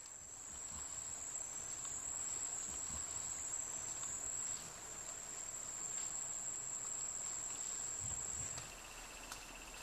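A rainforest insect's continuous high-pitched trill, steady and unbroken, easing off shortly before the end. A second, fainter and lower rattling trill joins near the end.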